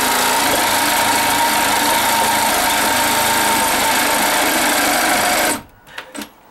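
Cordless reciprocating saw with a sharp blade cutting through a wooden wall stud, running steadily, then stopping suddenly about five and a half seconds in; a couple of faint clicks follow.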